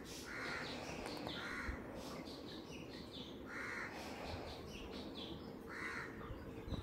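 A crow cawing faintly in the background, a few short caws a second or two apart.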